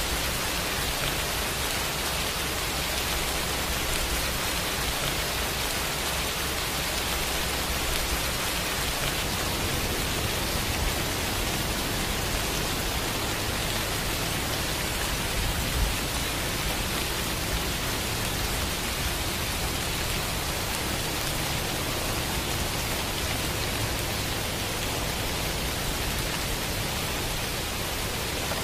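Steady rain falling, an even, constant hiss with one small tap about sixteen seconds in.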